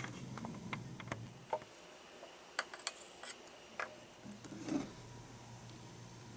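Gelatin pieces and white ceramic plates being handled on a table: a scatter of about ten light clicks and taps, over a faint low hum.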